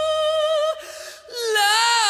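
Sung vocal from the soundtrack song: a held high note that breaks off, then a new note that wavers and slides down in pitch.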